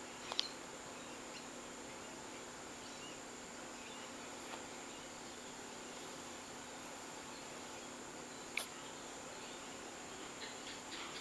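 Steady high-pitched drone of an insect chorus, with a few faint isolated clicks: one just under half a second in, another about three-quarters of the way through, and a run of soft ticks near the end.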